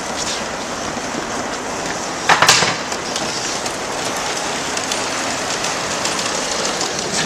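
LGB garden-scale model of a 99-class steam tank locomotive running with its coaches, giving a steady hissing noise, with a short louder burst about two and a half seconds in.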